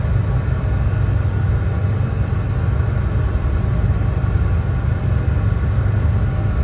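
Brown noise: a steady, deep rumbling hiss, strongest in the bass and fading toward the treble, with no change in level.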